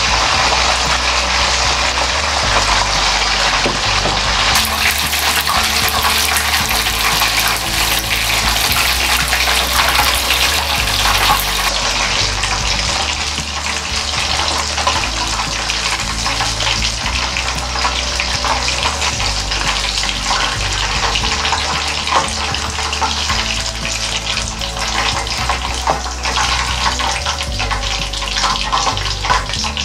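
Chicken pieces deep-frying in hot oil during the second fry of karaage: a dense, steady crackling sizzle that eases slightly in the second half.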